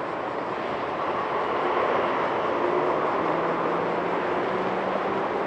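Steady engine drone, with a faint low hum coming in about three seconds in.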